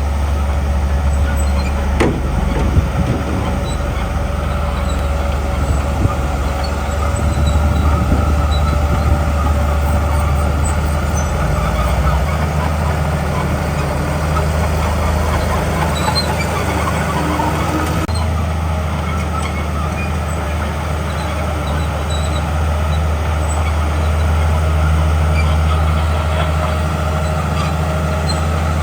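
Diesel engine of a Komatsu D41P crawler bulldozer running steadily under load, with a steady whine above the engine hum and a couple of sharp knocks about two seconds in.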